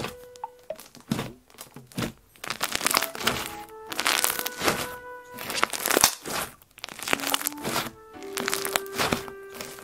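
Homemade slime being worked by hand: a string of irregular short, noisy bursts of squishing and crackling. Background music with soft held notes plays underneath.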